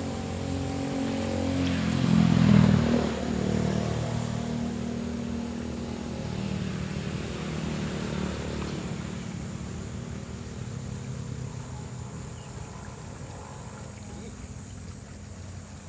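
A motor vehicle engine passing by, loudest about two and a half seconds in, then slowly fading away.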